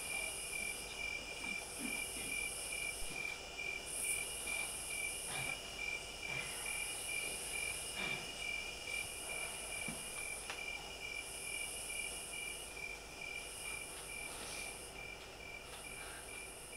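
Crickets chirping in a steady, fast pulsing trill, with a higher insect buzz that comes and goes about once a second. A few faint knocks sound underneath.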